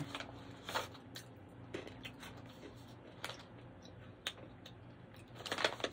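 Sparse light clicks and crackles, about one a second, as a plastic pouch of crunchy roasted chickpeas is handled; a faint steady low hum underneath.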